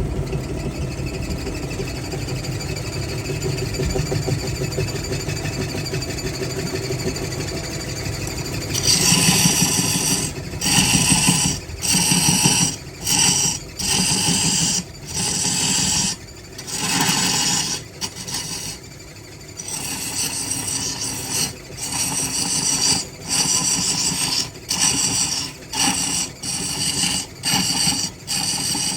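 A wood lathe runs with a steady hum. About nine seconds in, a series of short rasping strokes begins against the spinning wood, each about a second long with brief pauses between them.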